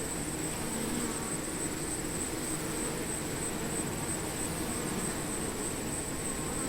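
Many bees buzzing together in a steady, low wavering hum, with a constant high-pitched hiss above it.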